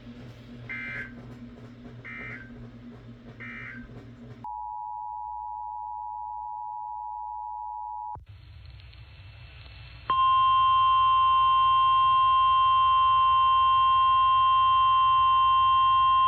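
Emergency Alert System broadcast tones. First come three short faint data beeps, then a steady two-tone attention signal lasting about four seconds. About ten seconds in, a much louder steady weather-radio alert tone starts and holds.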